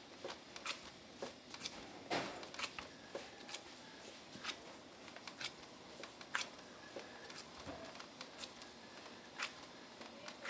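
Soba dough being kneaded by gloved hands in a lacquered wooden kneading bowl: irregular soft knocks and slaps as the dough ball is pressed and turned against the bowl, about one every half second to a second.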